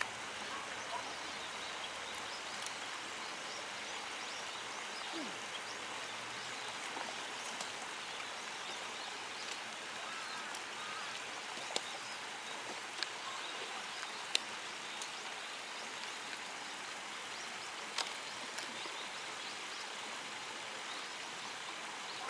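Steady rush of flowing water, with a few sharp clicks scattered through the middle.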